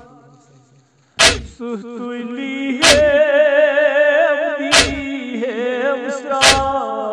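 Noha lament chanted by a group of male voices, cut by four heavy chest-beating (matam) slaps in a steady beat about every one and a half to two seconds. The chant fades almost to nothing at the start and comes back with the first slap about a second in.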